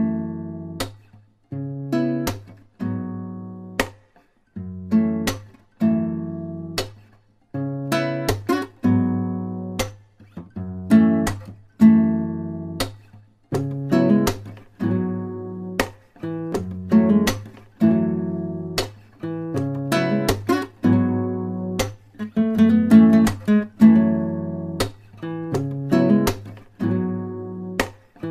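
Background music: acoustic guitar chords plucked and strummed, each ringing out and fading before the next, about one a second.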